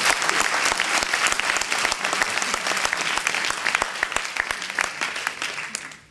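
Audience clapping, dense and steady, dying away near the end.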